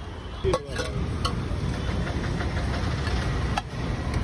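Steady low rumble of street noise, with a metal clank about half a second in and a few lighter knocks as a steel lid and a metal spatula are handled on a street vendor's flat griddle.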